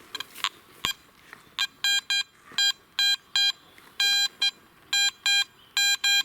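Garrett AT Max metal detector beeping as its coil is swept back and forth over a Soviet 3-kopeck coin: short mid-pitched tones, mostly in pairs about once a second, each pair one pass over the coin. A few clicks come before the beeping starts.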